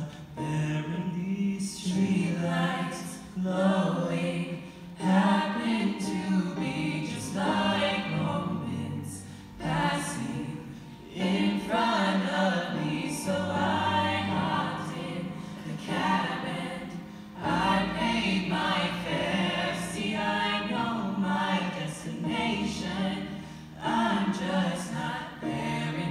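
A small mixed vocal group singing a slow song in harmony, accompanied by a stage keyboard, with soft percussion strokes about once a second.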